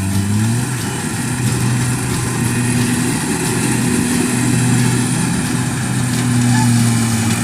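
Rice combine harvester's engine running steadily, its pitch dipping briefly right at the start and then holding.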